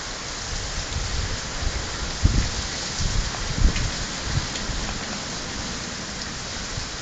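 Heavy rain pouring down, a steady hiss of rain on the ground and street, with a few brief low bumps a couple of seconds in and around the middle.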